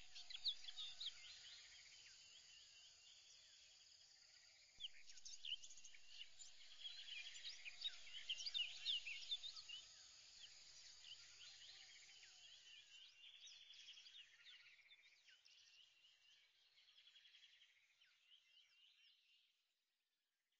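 Faint chorus of many small birds chirping and twittering, growing busier about five seconds in, then thinning and fading out near the end.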